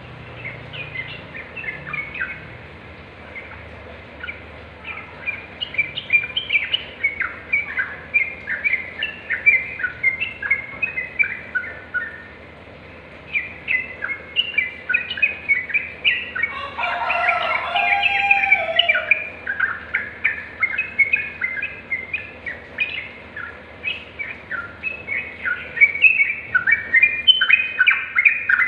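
Yellow-vented bulbul singing: a long, continuous run of quick, bubbly chirping notes. A denser, louder phrase comes about two-thirds of the way through.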